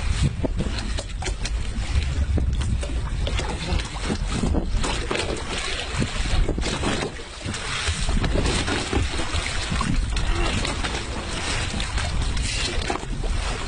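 Wind buffeting the microphone aboard a boat at sea: a steady low rumble with irregular gusts over the sound of the water.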